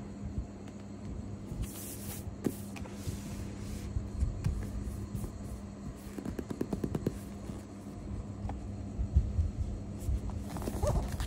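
Cardboard product box being handled and turned over: fingers rubbing, bumping and tapping on the box, with a quick run of taps about six to seven seconds in, over a steady low hum.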